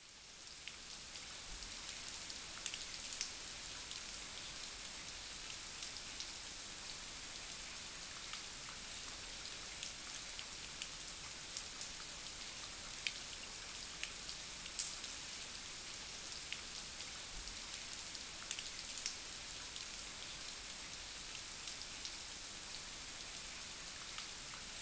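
Steady rain with scattered small drip ticks, fading in at the start, over a continuous high hiss.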